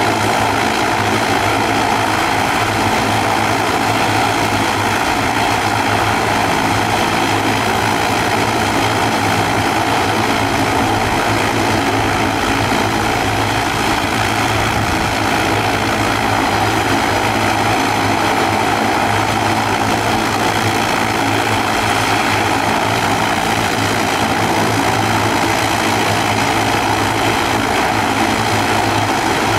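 ATR 42-500 turboprop's twin Pratt & Whitney PW127 engines and propellers running steadily at low power while the airliner taxis, a constant propeller drone with no rise in power.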